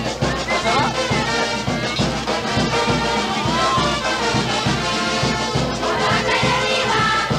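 Panamanian carnival tonada music: a brass band playing over a steady drum beat.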